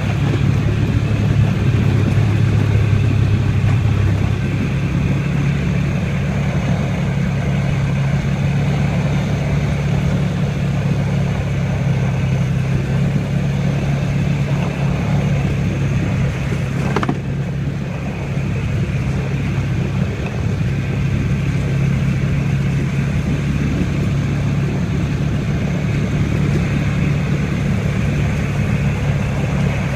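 ATV engine running steadily on the move, with a continuous low hum over rushing noise; the engine note shifts about four seconds in. A single brief click about seventeen seconds in.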